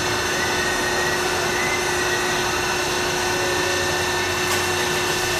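Automatic car wash machinery running: a steady drone with a few held tones.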